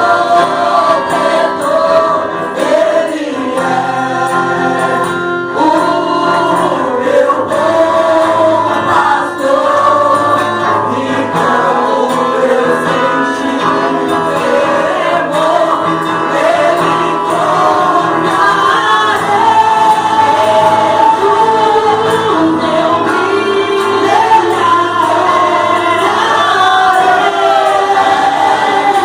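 A church praise team singing a gospel worship song together over sustained instrumental backing.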